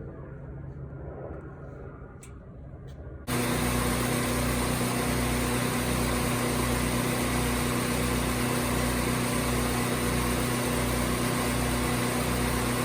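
A 30-gallon engine-driven service-truck air compressor running steadily. It comes in suddenly about three seconds in, with a low throb pulsing about twice a second under a steady hum.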